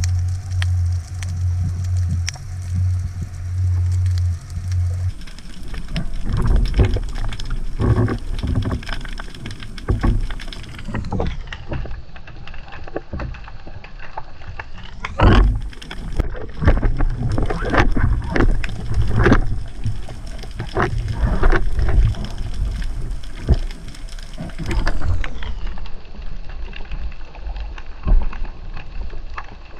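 Underwater sound picked up by a spearfisher's camera during a dive: irregular knocks, crackling and rushing water against the housing, with a steady low hum that stops about five seconds in.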